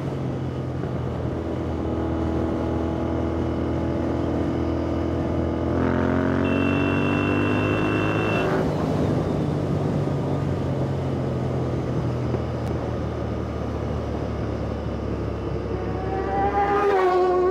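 Royal Enfield motorcycle's engine running at a steady cruise, heard from the rider's seat with wind rushing over the microphone. A horn sounds for about two seconds near the middle.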